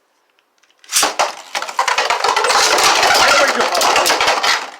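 Two Beyblades launched into a plastic stadium about a second in, then spinning and clashing against each other and the stadium walls: a dense, fast rattle of clicks and scrapes.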